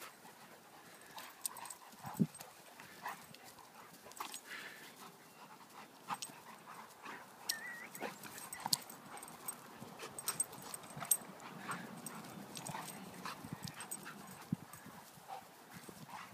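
Two dogs play-wrestling on grass: scattered scuffles and taps from their bodies and feet, with faint dog sounds mixed in.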